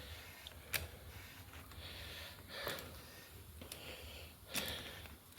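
Faint clicks and light rattling from a motorcycle's front brake lever being pumped several times, about two seconds apart. Pumping pushes the caliper pistons back out so the new pads clamp the disc and the soft lever firms up.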